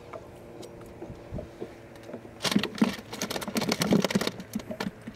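A hooked bluegill splashing at the water's surface as it is reeled up and swung out of the water. It comes as a dense burst of rapid splashes and slaps starting about halfway through and lasting about two seconds.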